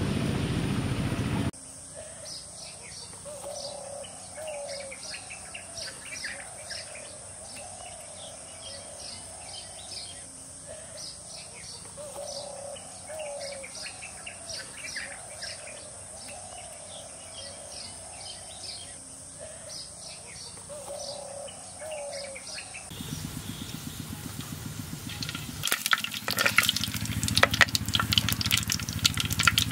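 Birds chirping and calling: many short high chirps and a repeated lower warbling call over a steady high hum. Near the end, oil heating in a clay pot starts to crackle and sizzle.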